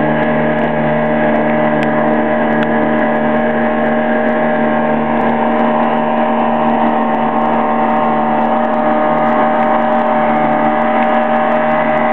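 Small motorboat's engine running at a steady cruising speed, an even drone with steady pitch, over the rush of water past the hull.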